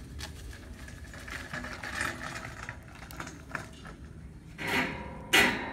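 Footsteps and a metal hand truck being wheeled over a gravelly driveway up to the loading ramps, with small scrapes and ticks, then two loud metal clanks near the end, the second sharp and briefly ringing.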